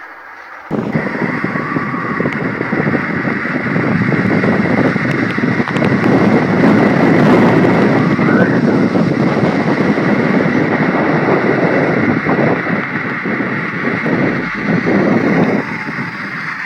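Strong wind blowing hard as a loud, steady rush of noise. It comes in abruptly about a second in and eases a little near the end.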